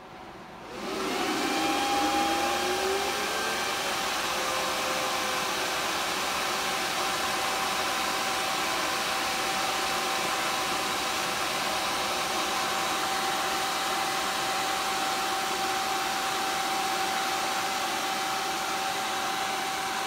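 AntMiner S9 bitcoin miner's cooling fans spinning up to full speed about a second in as the miner finishes booting: a whine rising over a few seconds, then a loud, steady rush of air with a constant whine, like a vacuum.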